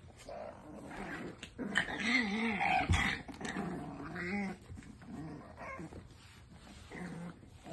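French bulldog puppies growling as they play-fight, the growls wavering up and down in pitch, loudest about two to four seconds in, with a few sharp taps mixed in.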